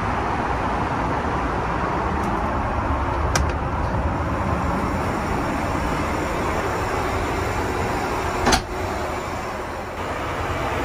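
Steady airliner cabin noise inside an Airbus A380, the even rush of engines and airflow, with two sharp clicks, a faint one about three seconds in and a louder one about eight and a half seconds in, after which the noise briefly drops a little.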